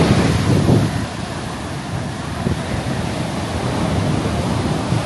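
Ocean surf washing in on a beach, with wind buffeting the microphone, heaviest in about the first second.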